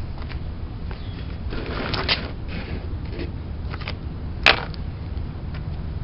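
Scattered clicks and knocks of trimmer parts and tools being handled, the sharpest one about four and a half seconds in, over a steady low hum.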